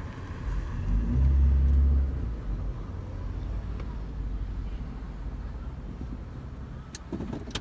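Low car engine rumble that swells loudly for about a second, about a second in, then settles to a steady low drone. A few short clicks come near the end.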